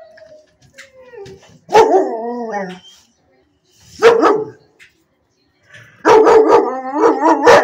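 Dog barking: a drawn-out bark falling in pitch about two seconds in, a single sharp bark near four seconds, then a quick run of barks through the last second and a half.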